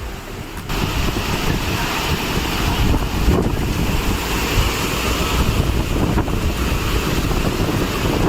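Steady rush of a waterfall, with wind buffeting the microphone; it gets suddenly louder about a second in and then holds.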